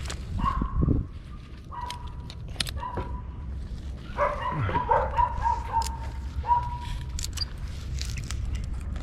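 An animal's short, high, whine-like calls, repeated several times with a quick cluster of them about halfway through, over a low steady rumble.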